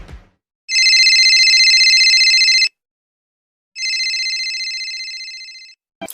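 Telephone ringing twice, each ring a steady high trilling tone about two seconds long with a short pause between; the second ring fades away.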